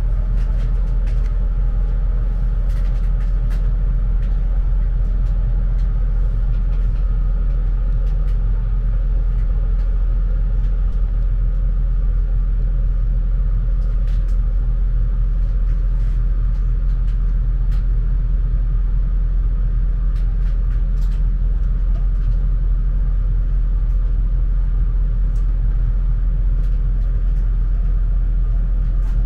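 Steady low rumble of a EuroCity passenger train running along the line, wheels on the rails, heard from inside the coach, with faint scattered clicks and rattles.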